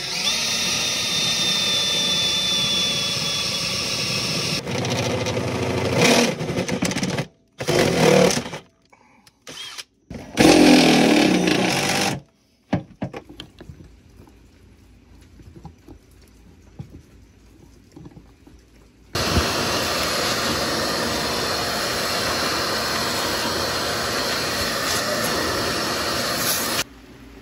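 A cordless drill runs steadily with a thin high whine as it bores up through the truck's sheet-metal floor pan, followed by several stop-start bursts of tool noise, the loudest about ten seconds in. After a quieter stretch of small handling ticks, a vacuum runs steadily for about eight seconds and cuts off sharply near the end.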